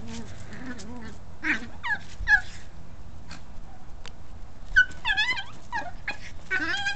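Chihuahua making high-pitched yips and whines in short bursts while it pounces at a ball. The calls come in three clusters: a few early, a rapid run about five seconds in, and another near the end.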